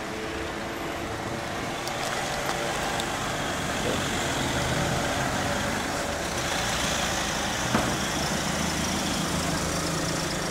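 Road traffic close by: car and van engines running over a steady hum of street noise.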